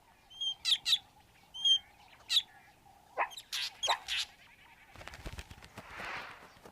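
Fork-tailed drongo giving a false alarm call: a run of sharp, ringing calls, then a few calls sweeping steeply down in pitch.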